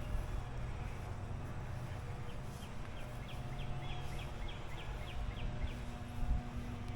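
A small songbird sings a run of about ten short, quick, high falling notes, starting a couple of seconds in and lasting about three seconds, over a steady low hum.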